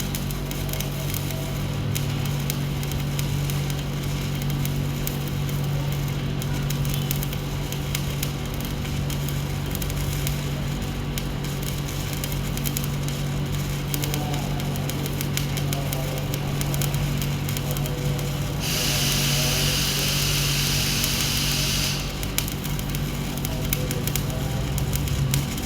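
Stick-welding arc crackling steadily on a pipe joint, over a constant electrical hum. A brighter hiss rises about two-thirds of the way in and stops about three seconds later.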